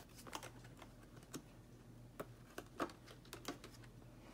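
Paper banknotes being handled and counted: faint, irregular light clicks and rustles, about a dozen over a few seconds.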